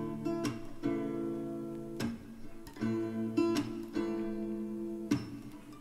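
Ringtone music: an acoustic guitar strums chords about once a second, each left to ring, with no singing.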